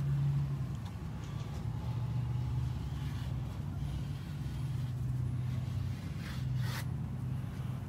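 Steady low hum of an idling engine-like motor, with a brief scrape about six and a half seconds in.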